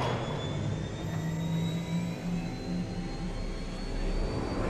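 Steady low droning hum with a faint high whine slowly rising in pitch, sounding like a distant jet aircraft: a recording of one of the mysterious 'sky sounds'.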